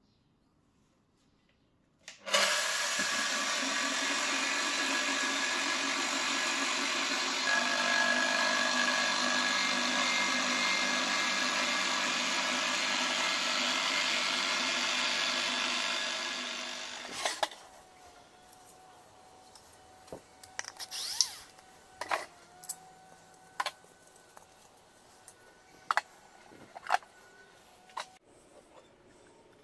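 Electric angle grinder switched on, spinning a tin can on its spindle inside a frying pan. It runs steadily for about fifteen seconds, then is switched off and winds down. A series of light clicks and knocks follows.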